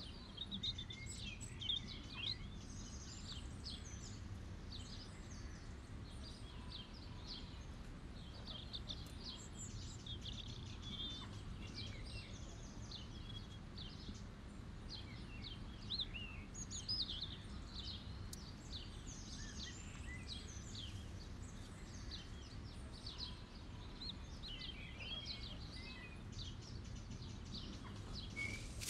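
Small birds chirping and twittering in a field, many short high calls scattered throughout, over a steady low background rumble.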